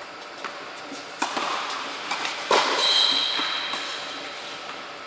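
Tennis ball struck by rackets a few times in an echoing indoor tennis hall, the loudest hit about two and a half seconds in. A brief high squeak follows it.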